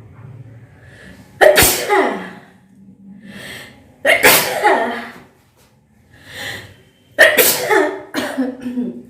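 A woman sneezing three times in a row, about three seconds apart, each sneeze sudden and falling in pitch, with quick sniffs in between. The sneezes are set off by sniffing the fumes of dried red chillies.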